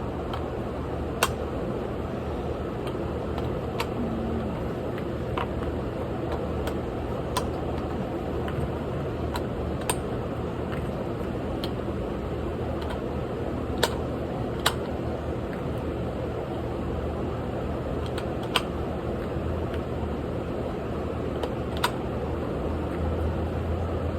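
A steady fan-like hum, with about nine sharp cracks or clicks at irregular intervals.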